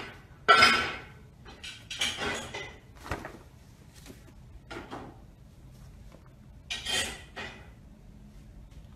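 Paper shopping bag crinkling and rustling in several short bursts as a cat moves and paws about inside it; the loudest burst comes about half a second in, with others around two, five and seven seconds.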